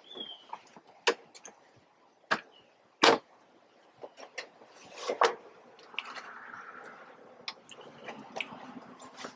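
A front door and a wall-mounted mailbox being handled: a series of separate sharp clicks and knocks, the loudest about three seconds in. After that comes softer paper rustling as a large envelope is pulled out and handled.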